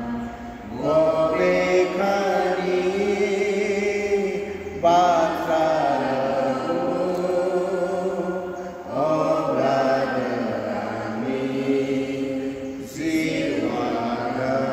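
Devotional chant sung in four long, sustained phrases, each starting sharply, during the Mass.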